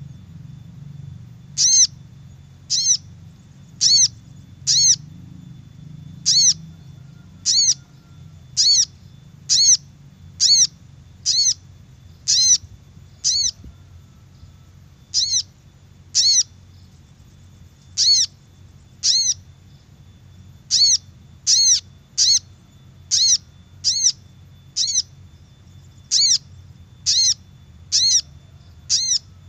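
Little spiderhunter (sogok ontong) calling: short, sharp single notes repeated about once a second at an uneven pace, with a pause of about two seconds midway. This is the kind of call used as a lure to draw wild spiderhunters close.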